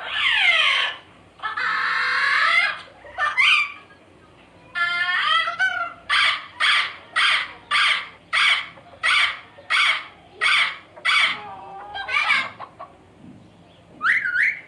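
Macaw parrot calling: a long, harsh falling screech, a drawn-out squawk, then a steady run of about ten short, harsh squawks a little over half a second apart, and a rising squawk near the end.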